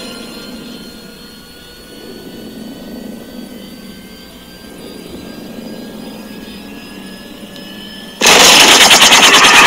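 Animated film action soundtrack played through a phone's speaker: helicopter engine whine with faint, slowly rising tones. About eight seconds in, a sudden loud rush of rapid chopping noise cuts in.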